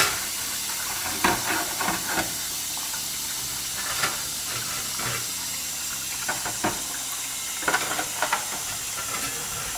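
Tap water running into a bowl in a stainless steel sink, a steady splashing hiss, with scattered short knocks and splashes as a hand puts brass clock parts into the water.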